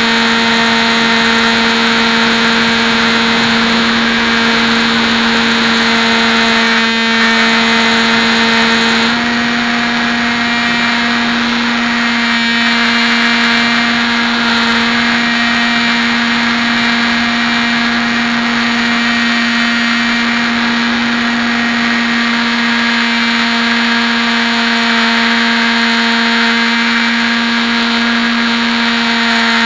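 Electric motor and propeller of a Hobby King Bixler RC plane in flight, picked up by its onboard 808 keychain camera: a steady buzzing drone with air rushing past, its tone shifting slightly about nine seconds in.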